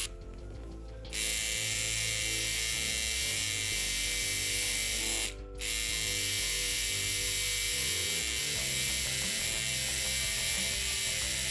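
Cheap Chinese-made rotary tattoo machine with an 8-needle shader running steadily while shading skin. It stops for about a second at the start and again briefly about five seconds in. Background music plays underneath.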